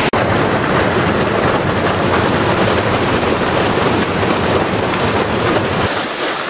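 Waterfall pouring into a canyon pool: a steady, loud rush of water, with a brief dropout just at the start.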